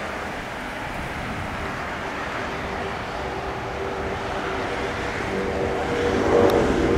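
Airbus A350-900's Rolls-Royce Trent XWB jet engines at takeoff: a steady rumble with a droning tone in it, growing louder about six seconds in.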